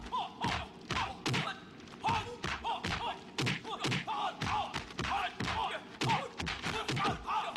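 Martial arts film fight sound effects: a rapid string of punch and kick impacts, several a second, mixed with the fighters' short grunts.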